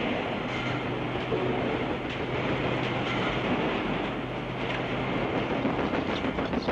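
A railway train running, a steady rumble with a low hum through the middle.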